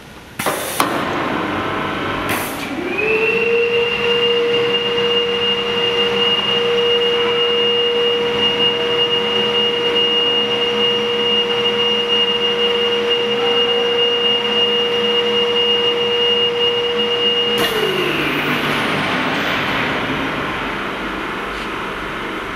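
1000 L container mixer running: short hisses of compressed air from its pneumatic cylinders, then the electric drive winds up to a steady whine, holds it, and winds back down.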